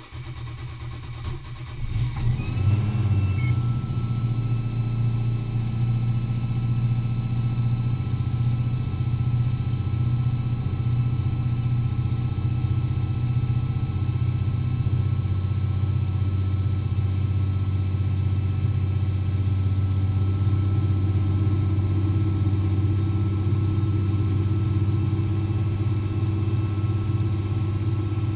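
Single-turbo Toyota 1JZ straight-six in a BMW E36 starting: about two seconds of cranking, catching about two seconds in, then settling into a steady idle.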